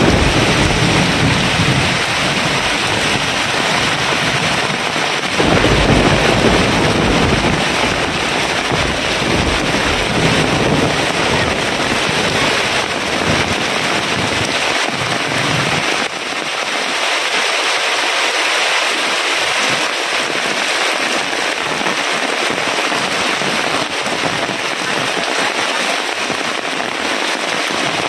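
Heavy rain pouring down onto a shelter roof and wet ground: a loud, steady hiss of rain. A deep rumble underneath falls away about two-thirds of the way through.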